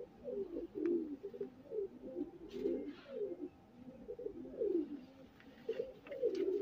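Domestic pigeons cooing over and over, several low coos overlapping, many falling in pitch.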